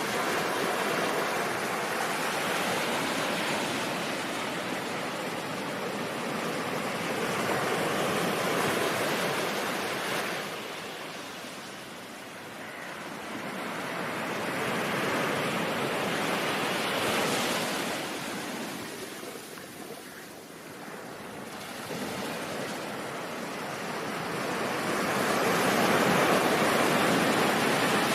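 Ocean surf: a steady rush of breaking waves that swells and eases about every eight seconds, with no music or tones.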